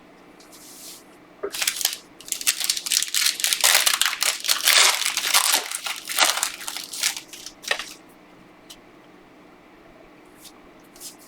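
Foil wrapper of a trading card pack being torn open and crumpled: a run of crinkling, crackling bursts lasting several seconds, then stopping.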